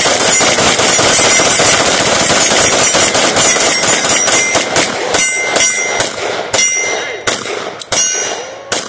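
Several handguns fired rapidly at the same time in a magazine dump: a dense, continuous stream of overlapping shots that thins after about five seconds into scattered single shots as the shooters run their magazines empty. The later shots are followed by a brief metallic ring.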